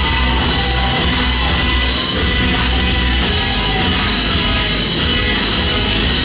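Loud live rock music: a heavy, pulsing bass beat under distorted guitar, with the bass easing back about three seconds in.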